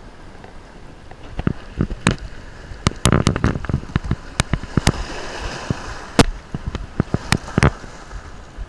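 Irregular sharp clicks and knocks of hands handling fishing gear close to the microphone, many of them, starting about a second and a half in. Under them runs the wash of small waves on a rock jetty, swelling for a moment around the middle.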